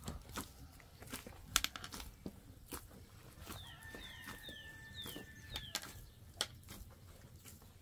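Hands kneading a large mass of dough in an aluminium basin, giving a string of soft knocks and slaps. From about halfway through, a bird chirps a run of short falling notes, about two a second.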